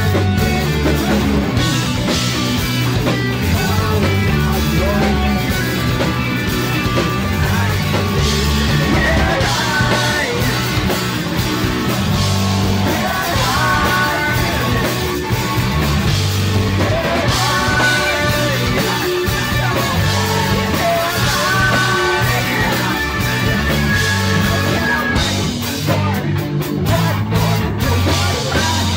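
Live rock band playing loud: electric guitar, bass and drums, with a singer shouting and singing into a microphone over them.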